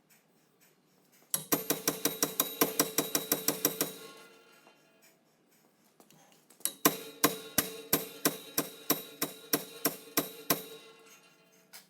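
Slogging hammer striking a bolted-on rear-hub puller tool, metal on metal with a ringing note, in two runs of rapid blows separated by a pause of about two seconds. The hammering is working loose a very tight rear hub on a Jensen Interceptor that has not yet let go.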